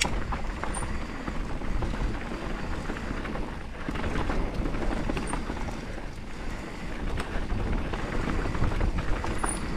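Mountain bike rolling down a rocky dirt trail: a steady rumble of tyres over dirt and stones with small knocks and rattles from the bike, and wind noise on the helmet camera's microphone.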